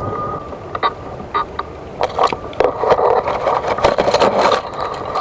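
Electric wheelchair's drive motors whining, a few sharp clicks, then from about two seconds in a loud rough scraping and grinding as the wheelchair labours where it has got stuck.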